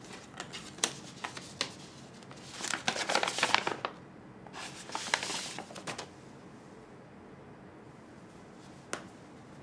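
Paper airmail envelope being handled and opened: a few light paper clicks, then two spells of crackling paper rustle as it is opened and its contents pulled out, and a single light tick near the end.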